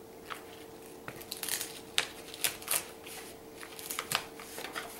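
Clear protective plastic film being peeled off a new laptop LCD screen panel, crinkling and crackling, with the sharpest crackles between two and three seconds in.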